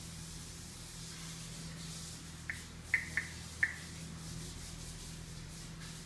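African grey parrot making four quick, sharp clicks about halfway through, over a steady low hum and faint rustling.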